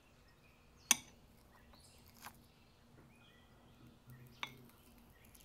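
Metal cutlery clinking against a serving board and plate while cutting into frozen ice-cream wafer sandwiches: a sharp clink about a second in, a softer one a little after two seconds, and another near the end.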